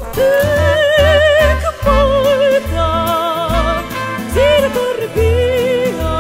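Background music: a melody of long held notes sung with a wide vibrato over low bass notes.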